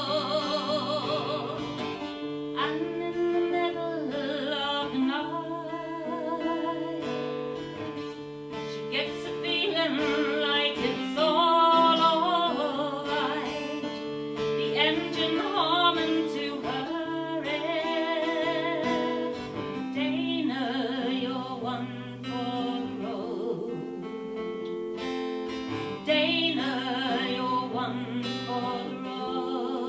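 Acoustic guitar playing chords live, with a melody line that wavers with vibrato over it, in a break between sung verses of a folk song.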